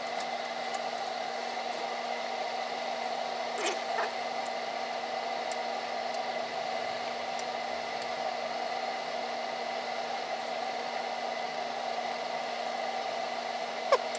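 Steady rushing hiss of water nearing the boil in a stainless keg kettle heated by a 5500 W Camco electric element, with a faint steady hum underneath. A couple of faint pops come about four seconds in and a short knock near the end.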